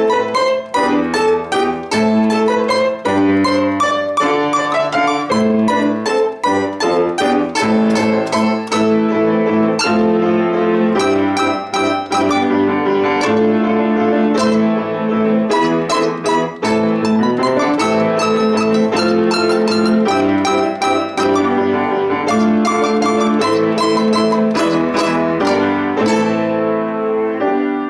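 A plucked string instrument playing an instrumental piece: a fast passage of many quick notes over a recurring lower note pattern, with the level steady and full.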